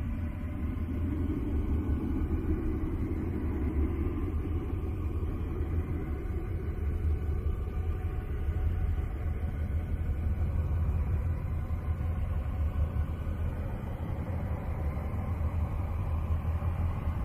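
A deep, steady rumbling drone with faint sustained tones above it. It is a 'planet sound': spacecraft radio recordings made audible.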